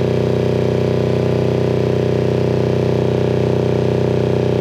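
Kawasaki Ninja 250 parallel-twin motorcycle engine idling steadily, warmed up, while its two carburetors are being synchronized.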